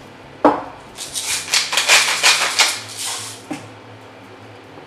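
Hand-twisted wooden seasoning mill grinding salt and pepper, a quick run of crackling clicks lasting about two seconds. A sharp knock comes about half a second in and a lighter one near the end.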